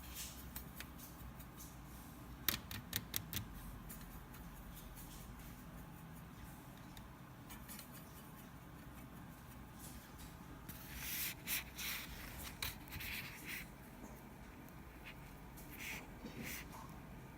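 Small handling sounds of painting: a quick run of light clicks about two and a half seconds in, then scratchy rubbing strokes of a brush or pencil on sketchbook paper around the middle and again near the end.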